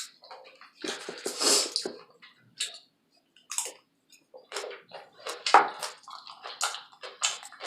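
Close-miked eating: chewing and wet mouth sounds in irregular bursts, the loudest about a second in and again about five and a half seconds in.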